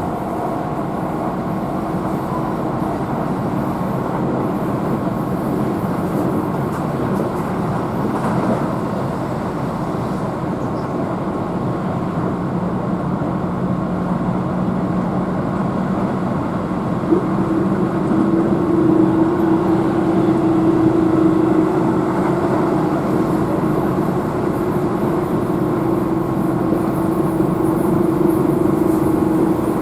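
Keihan Main Line electric train running at speed, heard from inside the carriage: a steady rumble of wheels on rail with a steady motor hum, which grows a little louder about eighteen seconds in.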